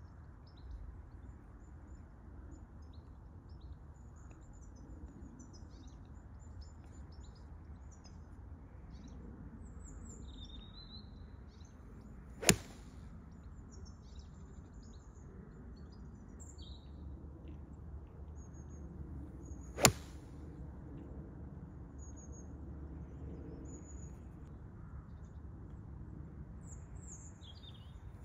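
Two sharp cracks of a golf club striking a ball off a range mat, the first about halfway through and the second some seven seconds later. Birds chirp faintly between the strikes.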